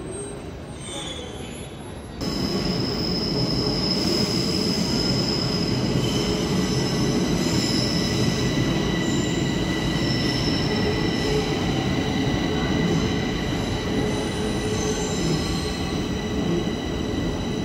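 Metro train running along a station platform: a steady, loud rumble of wheels and running gear with several high, steady squealing tones over it. The sound jumps up sharply about two seconds in, after a quieter stretch.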